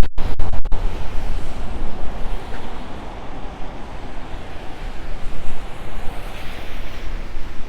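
Wind buffeting the microphone: a loud, gusting rumble with a rushing hiss, and a couple of very brief dropouts right at the start.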